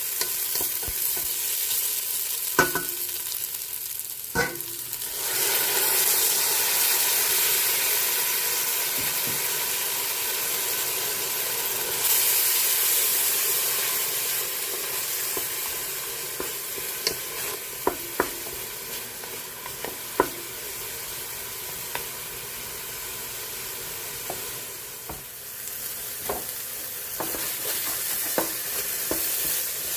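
Food sizzling as it fries in a hot pan, with a metal utensil stirring and now and then clinking against the pan. There are several clinks near the end.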